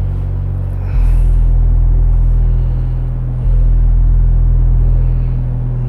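A loud, steady low machine rumble. It jumps louder about a second in, sags a little, then jumps up again past the middle.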